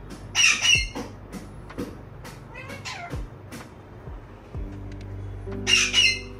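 Pet parrot screeching: two harsh, shrill calls about half a second in and two more near the end, over steady background music.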